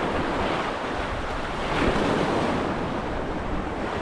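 Ocean surf washing against the shore, a steady rush that swells about two seconds in, with wind buffeting the microphone.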